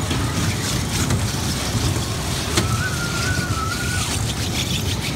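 Steady rumble of a children's toy-car ride running round its track, over indoor arcade noise. A high, slightly wavering tone sounds for about a second and a half near the middle.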